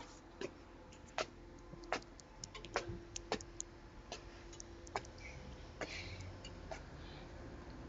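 Irregular light clicks of typing on a smartphone's on-screen keyboard, about a dozen taps at uneven intervals.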